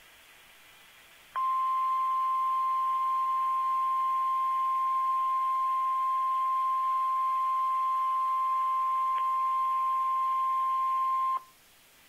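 NOAA Weather Radio 1050 Hz warning alarm tone: one steady high-pitched beep held for about ten seconds, starting a little over a second in and cutting off sharply near the end, the signal that a warning message follows. Faint radio hiss before and after it.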